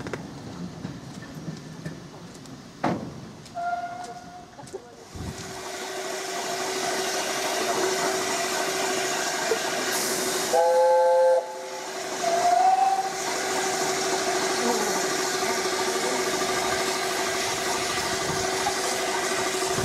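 Steam locomotive hissing steadily as its steam builds. About halfway through it gives a short, loud whistle of several notes sounded together, followed a second later by a brief, rising second toot.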